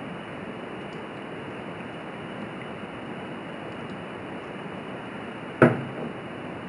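Steady hiss of room tone, with one sharp knock near the end.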